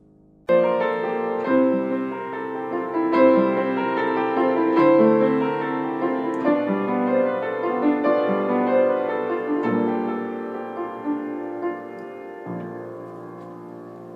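Piano-sounding keyboard music: chords and a melody begin suddenly about half a second in, each note struck and left to ring out, growing gradually softer toward the end.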